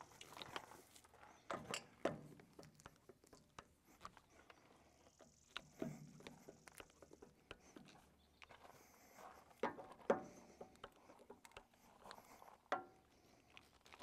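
Faint, irregular clicks and knocks of a grease gun being worked on a compact tractor's loader grease fittings, with shifting footsteps on gravel.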